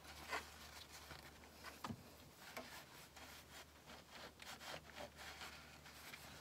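Faint, scratchy rubbing of a paper towel wiping down the diverter valve mounting face on the turbo, in short strokes, with a small knock about two seconds in.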